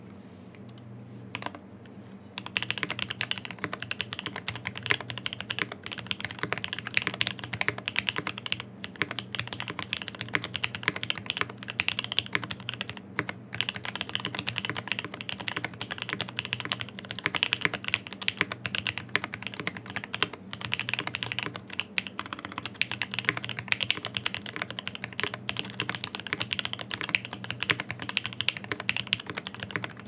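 Typing on a custom 65% mechanical keyboard, a Typ65+ prototype with an FR4 plate, OP Black switches with MP68 springs and GMK keycaps. After a near pause with a single keystroke, fast continuous typing begins about two and a half seconds in: a dense, uneven stream of key clacks.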